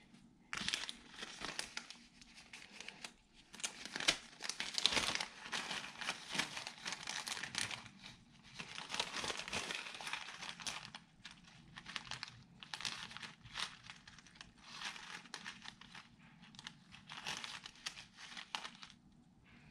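Clear plastic packaging bag crinkling in irregular bursts with short pauses, as a hand rummages inside it for small acrylic snowflake shapes.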